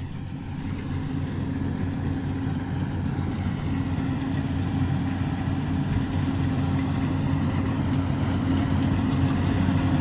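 Rice combine harvester's engine running steadily: a constant low drone.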